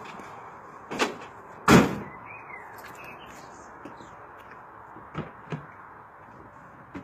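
Two sharp thuds a little under a second apart, the second the louder, then two lighter knocks about five seconds in: a bag being put into the load bed of a pickup truck, then the truck's door being handled.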